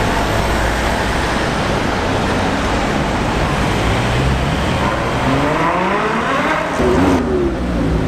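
A sports car's engine over heavy road noise, its note climbing steadily for about two seconds, then dropping sharply as the car passes.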